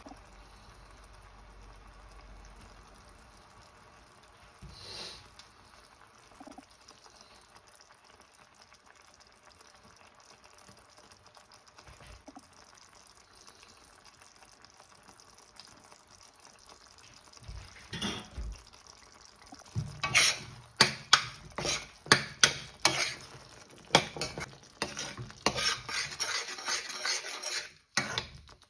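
Metal spoon stirring a liquid curry sauce in a stainless steel frying pan, with rapid repeated clinks and scrapes of the spoon against the pan over the last ten seconds or so; before that only faint small sounds as spices are spooned in.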